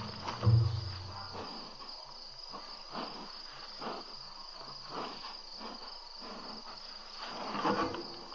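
Steady high-pitched trilling of a cricket chorus. A brief low thump-like rumble comes about half a second in, and a few soft knocks follow later.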